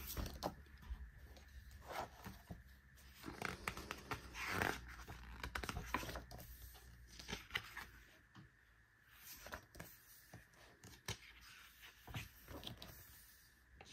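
Faint rustling, crinkling and light taps of paper and plastic album contents being handled and unpacked, with a louder rustle about four and a half seconds in.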